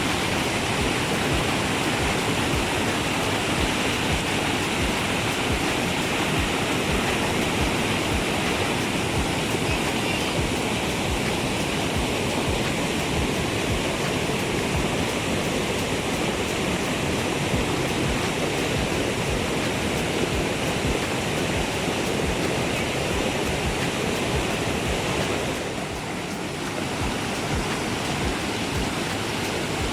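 Waterfall swollen by rain, its falling water making a steady rush that dips slightly for a moment near the end.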